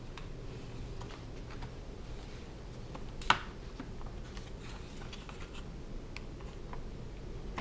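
Light clicks and handling noises of small plastic parts being worked loose from a horizontal blind's headrail, with one sharp click about three seconds in, over a low steady hum.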